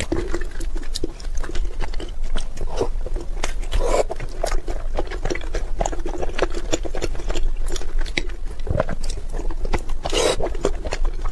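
Close-miked eating sounds: wet chewing and lip smacks over soft, syrup-soaked buns, with chopsticks tearing the buns and a louder wet bite about ten seconds in.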